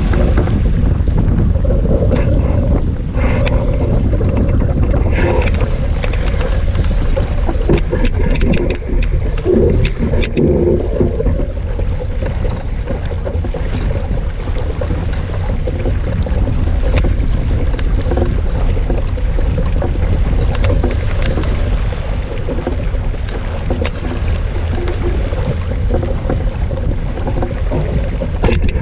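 Wind blasting the microphone over the rush of water along the hull of a Laser 2 sailing dinghy under way, with a run of sharp splashes and slaps against the hull about a third of the way in.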